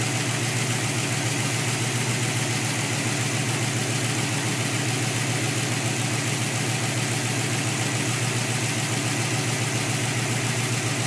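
Pontiac Firebird V8 engine idling at a steady, even level.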